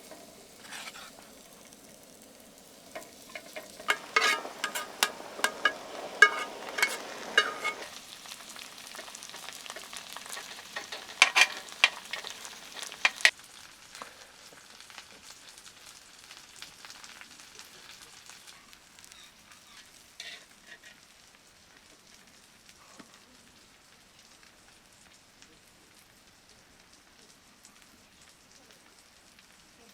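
Food frying and sizzling in a pan, with sharp clicks and knocks of a utensil against the pan in two busy spells in the first half. The sizzle then dies down to a faint hiss.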